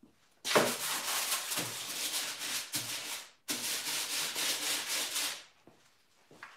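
Two long, harsh rubbing strokes, the first about three seconds and the second about two, with a short break between them.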